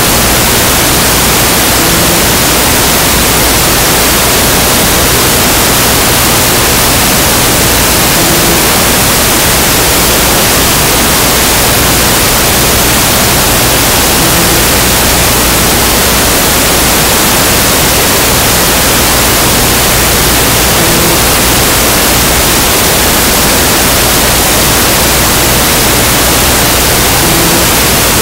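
Loud, steady static hiss, like white noise, covering everything else. No sneaker squeaks, ball bounces or whistles can be picked out.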